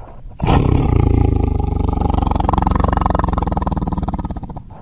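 Edited monster roar sound effect for the alien beast Rouler: one long, loud roar with a rough, pulsing texture starts about half a second in and fades near the end.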